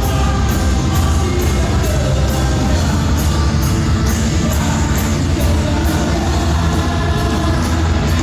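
Live rock band playing at full volume: distorted electric guitars, bass and drums with steady cymbal strokes, and a male lead vocalist singing over them.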